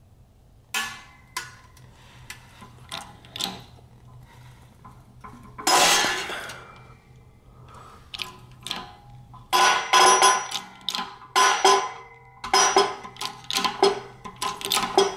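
Shop press forcing a new rubber differential bushing through the worn one in an aluminium differential cover: a string of sharp metallic clinks and clanks with short ringing. There is one longer, louder noise about six seconds in, and the clinking comes thick and fast over the last six seconds.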